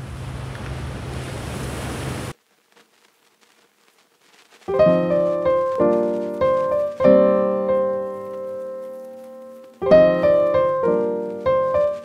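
Steady rushing surf noise of ocean waves that cuts off abruptly about two seconds in. After a couple of seconds of silence, solo piano music begins: chords and single notes that ring out and fade, with one long held chord in the middle.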